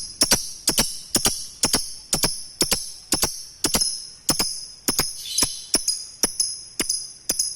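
Lovebird calling: sharp, shrill chirps repeating in a steady rhythm of about two a second, often in close pairs.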